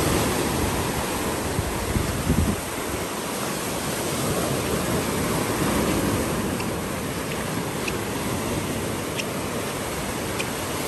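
Sea surf breaking and washing up a sandy beach, a steady rushing that swells and eases as the waves come in.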